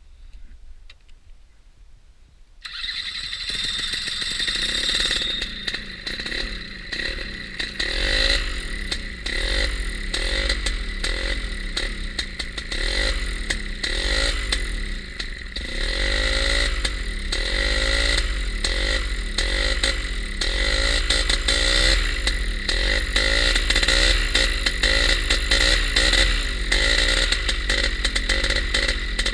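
Simonini Mini 2 two-stroke paramotor engine starting about three seconds in, then running with the revs repeatedly rising and falling as the throttle is worked. It idles well but has trouble getting good revs, which the owner suspects may come from old fuel lines or leaking seals.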